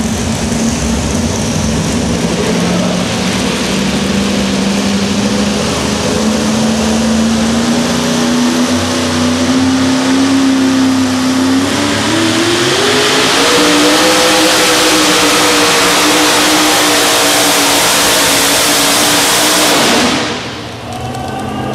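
Supercharged engine of a modified 4x4 pulling truck running loud at a steady pitch, then revving up and climbing in pitch about twelve seconds in as it pulls the sled. The level drops sharply for a moment near the end.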